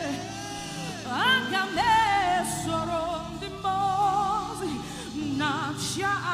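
Gospel worship singing in Igbo: a singer holds long, sliding notes with heavy vibrato over a sustained instrumental backing.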